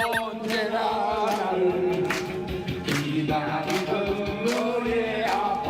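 Elderly villagers singing a song together to musical backing.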